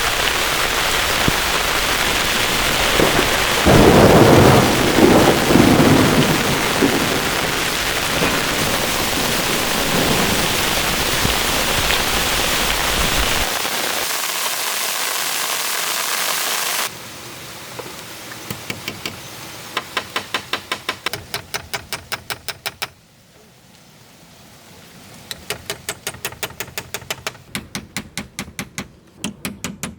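Heavy rain pouring down, with a rumble of thunder about four seconds in. After about seventeen seconds the rain cuts off abruptly to a quieter background, broken by quick runs of sharp ticking at about four a second.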